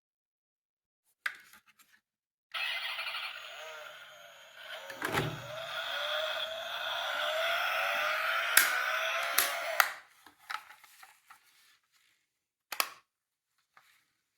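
Toy emergency vehicle's electronic siren through its tiny speaker: a thin, gliding wail that starts suddenly, runs for about seven seconds and cuts off. A thump about halfway through, and sharp clicks before, near the end and after.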